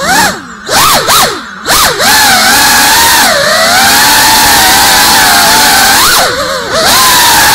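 GEPRC CineLog 35 cinewhoop's motors whining, heard through the onboard camera. The pitch swoops up and down with quick throttle punches at first, then holds a steady high whine that dips briefly near the end and climbs again.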